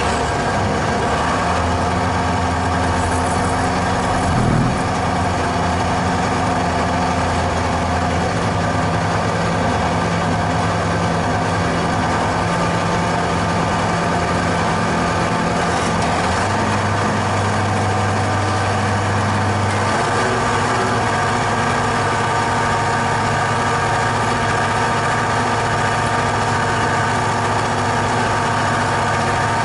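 Tractor diesel engine running steadily, its speed stepping up and down several times.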